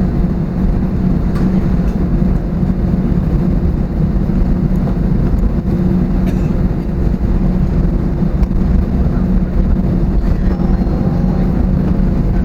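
Airbus A320neo cabin noise on the ground after landing: a steady loud low rumble from the engines and air system, with a constant hum and a few faint clicks.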